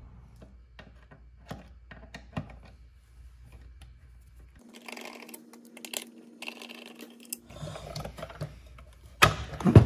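Scattered light clicks and taps of a T25 Torx screwdriver turning out screws and knocking against the bandsaw's housing. A faint steady hum runs through the middle, and a louder knock comes near the end as the saw is handled.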